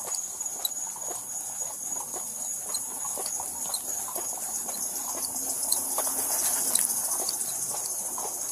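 Footsteps of a person walking at a steady pace on pavement, about two steps a second, over a steady high chorus of night insects.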